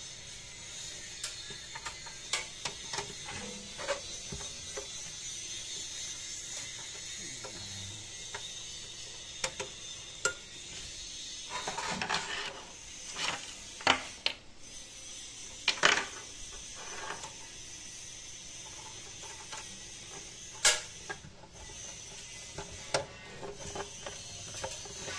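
Scattered clicks, knocks and rattles of cables and connectors being handled at the back of a CCTV DVR, over a steady high hiss. The loudest knocks come in a cluster about halfway through and once more near the end.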